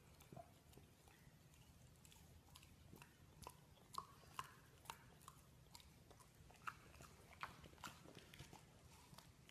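Faint, scattered mouth clicks and smacks of a Shar-Pei puppy chewing, coming more often from about three seconds in.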